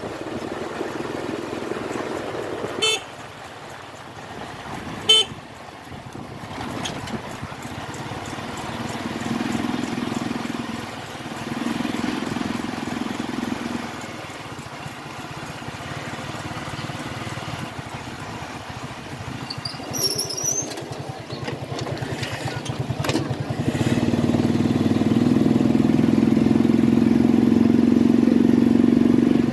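Motorcycle with sidecar running along a street. Two short horn toots come about three and five seconds in, and the engine gets louder for the last few seconds.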